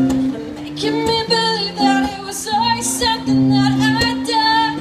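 A woman singing live to her own acoustic guitar. The guitar's held chords ring on their own at first, and her voice comes in about a second in with long sung notes.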